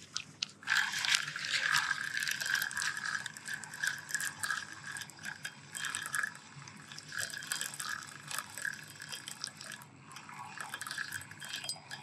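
Fishing reel clicking and whirring without a break while a hooked grass carp is played, the drag and gears ratcheting under the pull of the fish, with short pauses about six and ten seconds in.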